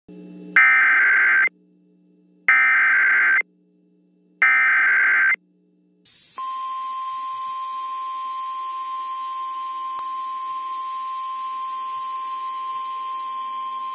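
NOAA Weather Radio emergency alert signal: three one-second bursts of SAME digital header data tones about a second apart, then the long steady 1050 Hz warning alarm tone from about six seconds in. It is the signal that a warning, here a tornado warning, is about to be broadcast.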